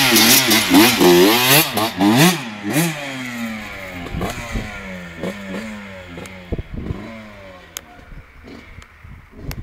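Honda CR125 two-stroke single-cylinder motocross bike revving up and down hard close by. It then pulls away, its engine note stepping up and down as it rides off and fades into the distance.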